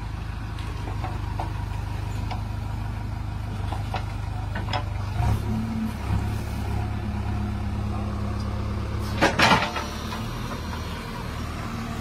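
JCB backhoe loader's diesel engine running with a steady low hum, its note changing about five seconds in. A loud clattering knock about nine seconds in.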